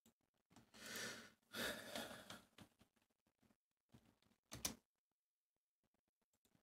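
Near silence from a cut-off microphone, broken by a few faint breaths: two soft ones within the first three seconds and a brief one a little past the middle.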